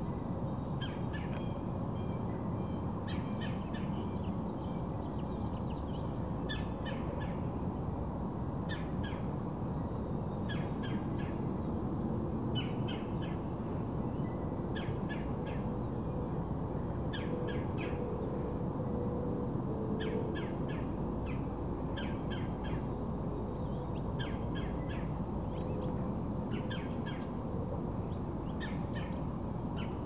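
Red-bellied woodpecker calling over and over: a short rolling call of a few quick notes, repeated about every two seconds, the agitated calling of a bird upset at its nest tree. A steady low rumble of background noise runs underneath.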